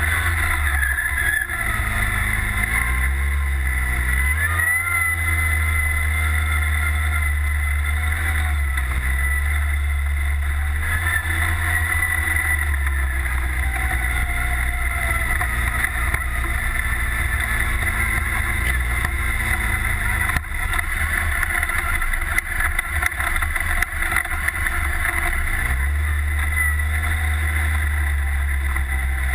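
Redline Revolt off-road buggy's engine running under changing throttle, its pitch rising and falling as it accelerates and eases off. Short knocks and rattles from the rough ride come a little past the middle.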